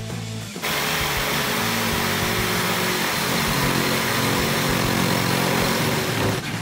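Electric jigsaw running steadily as it cuts through a wooden board, starting about half a second in and stopping abruptly just before the end.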